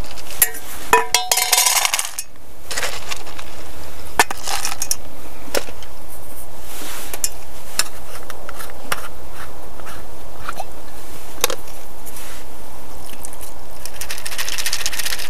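Dry dog kibble rattling into a stainless steel bowl about a second in, with ringing clinks of the metal bowl. Later come a few single clinks and knocks of containers and lids being handled, and a rattling pour near the end.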